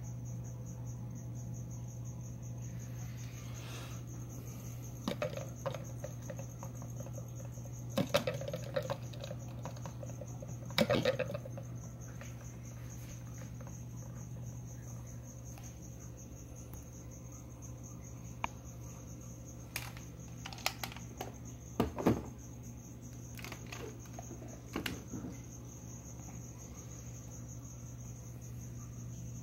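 Crickets chirping in a steady, continuous high trill over a low hum, with a handful of sharp clicks and knocks from plastic enclosures and feeding tongs being handled.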